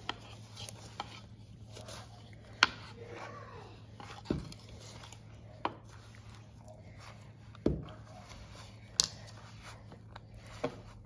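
Hands squishing and kneading crumbly cookie dough in a plastic mixing bowl, with soft crackly rustling and about six sharp clicks or knocks spread through it.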